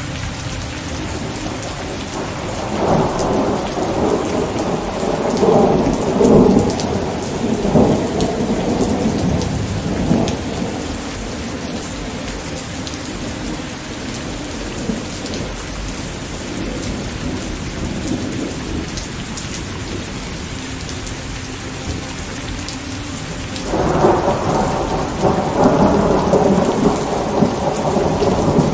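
Steady rain falling, with rolling thunder rumbling twice: a long roll a few seconds in, and another starting near the end.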